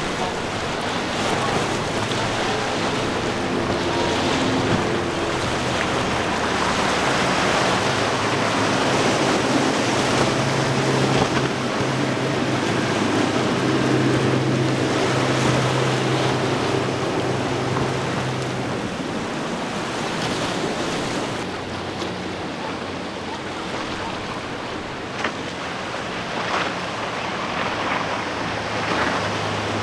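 Outboard-powered center-console boats running past at speed: a steady engine hum over the rush of spray and wake, with wind buffeting the microphone. The engine note is strongest about ten to nineteen seconds in, and again near the end as a Pro-Line with a single Suzuki 300 hp outboard passes.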